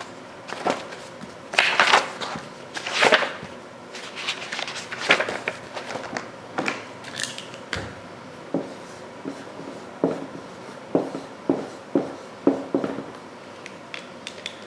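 Handling noises: irregular clicks, taps and rustles of small objects being moved, with the loudest rustling bursts about two and three seconds in.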